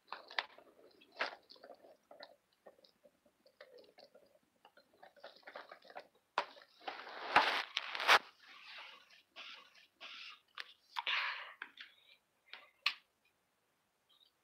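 Close rustling and scattered clicks and knocks from a phone being handled near its microphone, loudest in two sharp knocks about seven and eight seconds in.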